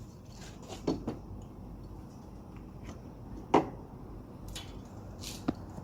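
A few short knocks and clicks of parts and tools being handled, the loudest about three and a half seconds in, with a brief hiss near the end, over a steady low hum.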